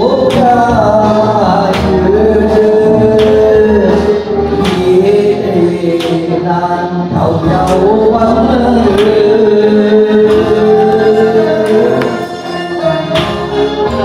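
Harmonica played into a hand-held microphone: a sustained melody over a recorded backing track with a steady drum beat.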